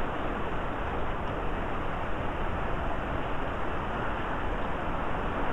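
Heavy hurricane rain and strong wind making a steady, dense hiss.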